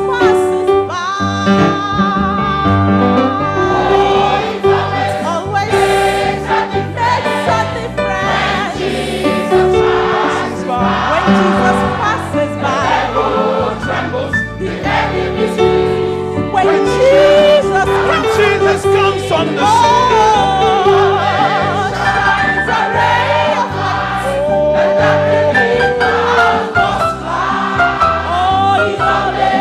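Gospel choir music: singing voices over an instrumental band with a steady beat.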